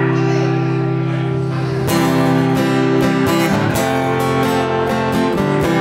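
Acoustic guitar strumming chords as a song's intro. A chord rings out, then about two seconds in a new chord comes in, strummed in a steady rhythm.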